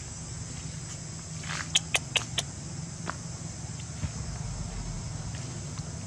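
Outdoor forest ambience with a steady high insect buzz under a low rumble, broken about two seconds in by four sharp clicks in quick succession, a few tenths of a second apart.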